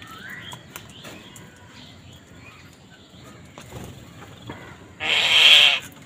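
House crows at a feeding bowl: faint calls and small pecking clicks, then about five seconds in one loud, harsh caw close by, lasting under a second.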